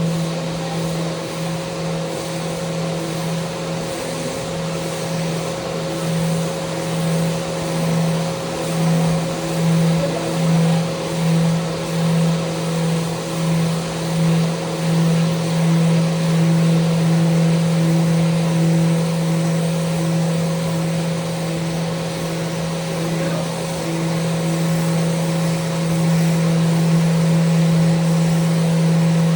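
Electric power sander running steadily with a constant motor hum. For several seconds in the middle its level swells and dips about once a second as it works along the handrail.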